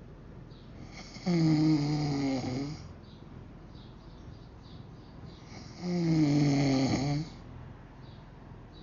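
A person snoring heavily: two long snores about four and a half seconds apart, each sliding down in pitch toward its end, with quieter breathing between them.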